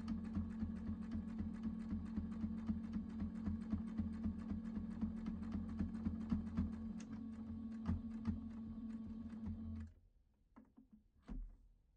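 Electric household sewing machine stitching a straight seam through layered cotton fabric: a steady motor hum under rapid, even needle clicking. The machine stops about ten seconds in, followed by a few faint clicks and a soft knock.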